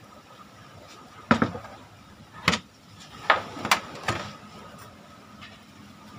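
A handful of short, sharp knocks and clacks from the parts of a dismantled exhaust fan being handled during cleaning, about five in the first four seconds.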